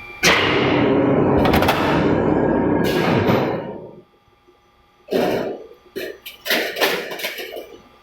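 Press machine working: a sudden loud noisy run of about three and a half seconds with a few sharp knocks in it, then after a short pause several shorter bursts.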